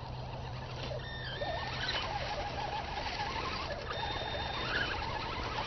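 Radio-controlled scale crawler trucks driving through mud, their small electric motors and gears whining, with brief high steady whines about a second in and again about four seconds in.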